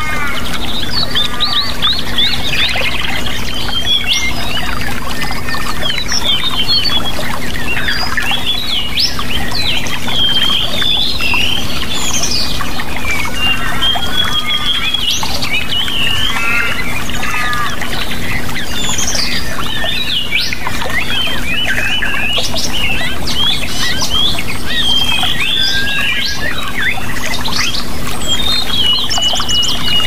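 Many birds chirping and whistling over and across each other, a dense chorus of short, fast calls, over a steady rush of water and a constant low hum.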